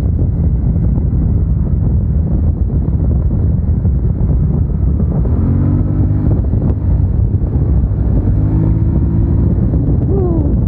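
Motorcycle riding with heavy wind rush over the microphone and the engine running underneath. The engine note rises about halfway through and again later, with a quick swoop in pitch near the end.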